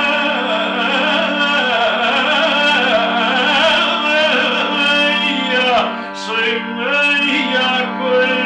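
Cantorial singing: a male lyric tenor chazzan sings a florid, ornamented liturgical line over a sustained held chord beneath him, with a falling vocal slide about six seconds in.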